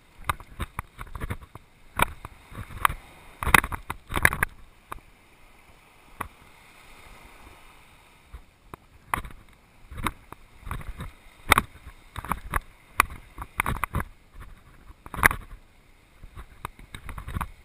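Footsteps crunching on sand, with knocks and rubbing from a body-worn camera as its wearer walks: irregular thuds, with a quieter stretch of soft hiss near the middle.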